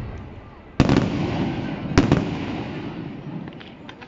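Aerial firework shells bursting: two loud bangs about a second apart, each trailing off into a long rolling echo, with a few faint crackles near the end.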